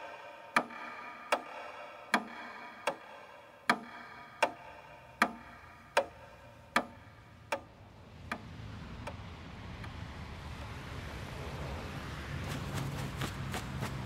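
Slow, regular ticking, about four ticks every three seconds, each with a short ringing tail; it stops about eight seconds in. A soft hiss then swells up, with a low steady hum joining near the end.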